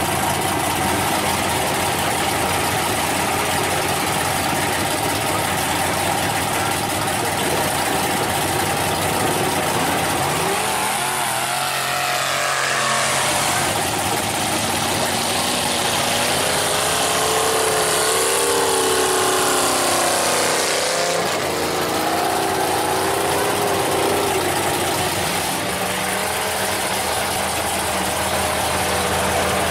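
Heavy diesel engines idling steadily, with one engine revving up and down for about ten seconds in the middle as a wheel loader works through the mud toward a stuck mud truck.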